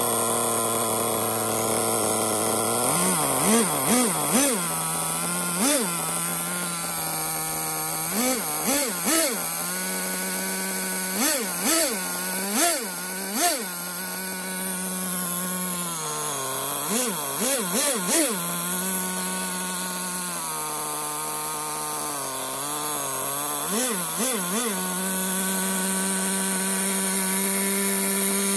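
Kyosho GZ15 small two-stroke petrol engine running on a test stand. After a couple of seconds at a low idle, its pitch steps up, and the throttle is blipped again and again: quick revs that rise and fall, in clusters of two to four, between stretches of steady running. Near the end it settles to a steady, faster idle.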